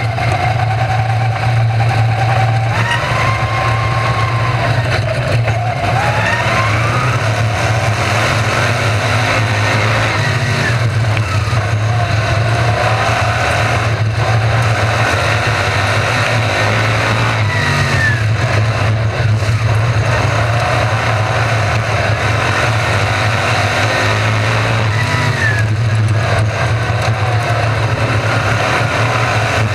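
A field of RaceSaver 305 sprint cars' V8 engines running together on a dirt oval, loud and continuous. Several engine notes rise and fall in pitch as the cars pass.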